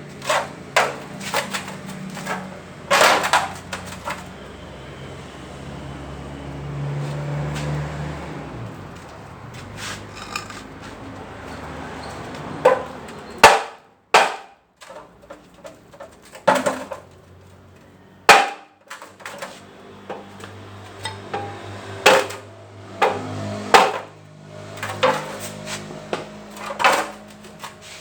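Irregular metal knocks and clanks of hand tools striking transmission parts during disassembly, some with a short ring. A low hum under the first several seconds fades out.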